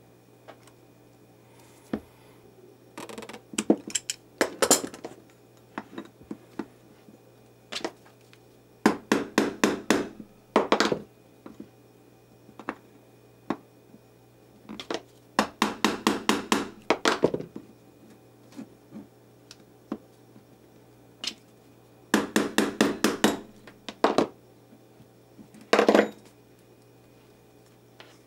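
A small hand screwdriver tightens the screws of a vintage Atlas sewing machine motor's housing. The sound comes in five or six runs of rapid clicking, each a second or two long, with short pauses between them.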